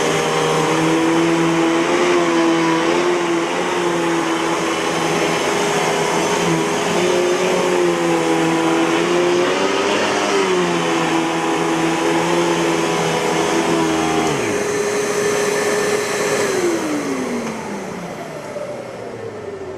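Eureka Boss 6833B canister vacuum cleaner running, its motor whine wavering in pitch a few times. Near the end the motor is switched off and winds down, its pitch falling steadily as it fades.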